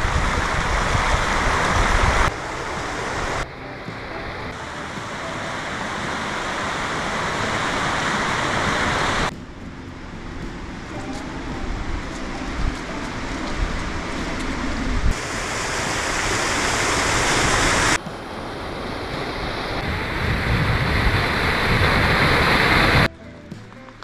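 Mountain stream rushing over rocks, a steady noisy wash of water heard in several cut segments whose loudness jumps at each cut and swells within some of them.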